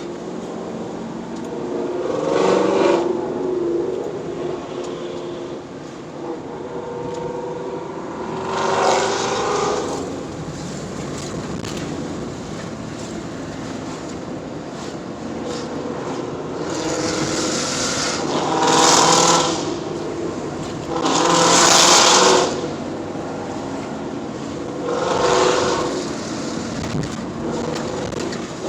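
Car engines making about five loud surges over a steady background of engine noise.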